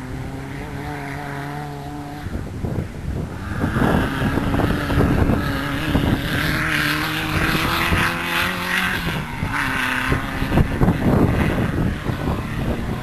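Off-road racing buggy engines revving hard, their pitch climbing and dropping back with gear changes. They grow louder about four seconds in as the buggies come past.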